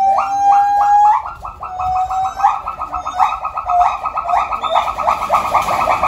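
A loud animal call: a few rising whoops and one held note, breaking about a second in into a fast trill of short repeated notes, about ten a second, that carries on.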